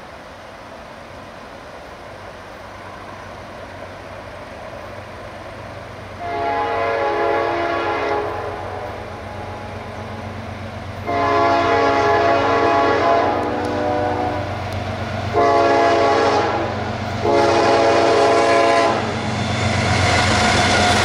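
CSX freight diesel locomotives approaching and blowing a multi-note air horn in the grade-crossing signal: two long blasts, a short one, then a long one, over a low engine rumble that grows louder. Near the end the locomotives pass close and the rumble and rail noise are at their loudest.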